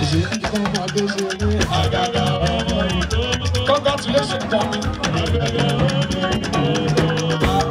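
Live band music playing without a break: a singer with keyboard and a steady run of percussion.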